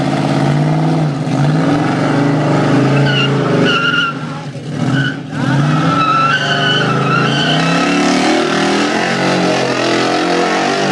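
Dodge Challenger V8 revving hard and unevenly through a drift, with its tyres squealing in wavering bursts twice. The engine drops back briefly around the middle before coming back on the throttle.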